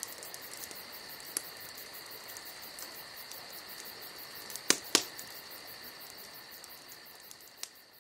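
Night insects, crickets, trilling steadily in a high, fast-pulsing chorus. About five seconds in, two sharp cracks come close together, the loudest sounds here.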